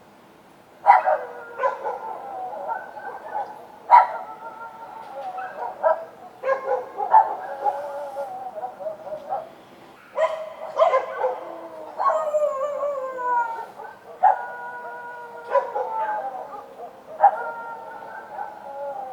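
Several street dogs barking and howling, overlapping: each sharp bark runs into a long, falling howl. Fresh outbursts come every second or few, with brief lulls between.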